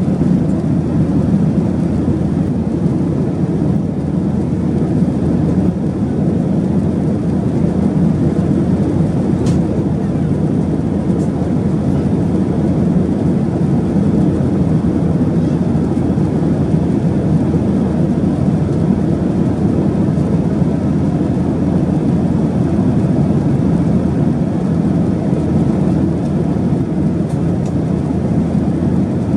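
Steady rumble and rush inside the cabin of a Boeing 737-800, its CFM56 engines running.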